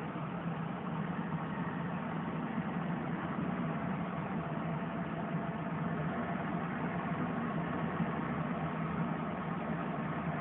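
Diesel semi-truck engine running steadily at low speed, a constant hum that neither rises nor falls.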